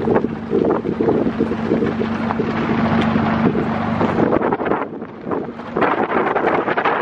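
Wind buffeting the microphone in gusts, with a faint low steady hum beneath it for the first few seconds. The wind eases briefly about five seconds in, then picks up again.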